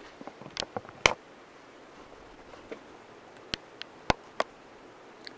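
Scattered sharp clicks and light knocks from a camera being taken off its tripod and handled, the loudest about a second in.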